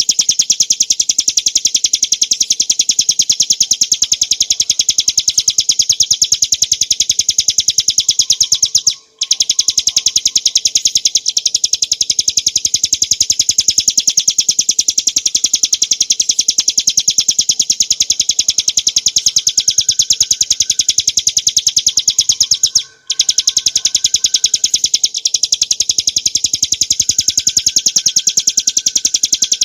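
Ciblek gunung, a small prinia, singing a long, very fast trill of high repeated notes. The song breaks off twice for a moment, about nine seconds in and again about 23 seconds in.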